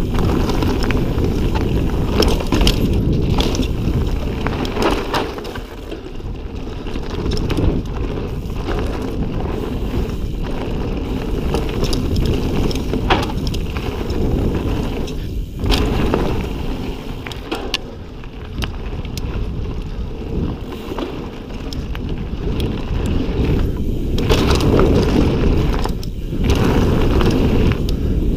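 Wind rushing over the microphone of an Ibis Ripley mountain bike descending dirt singletrack at speed, with tyres on dirt and frequent clicks and rattles from the bike over bumps. The rush eases twice, about five seconds in and again midway.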